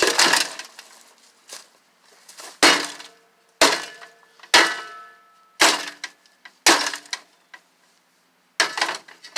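An old rusty microwave oven being smashed: about six heavy blows land on its casing roughly a second apart, some followed by a brief metallic ring and rattle of loose parts.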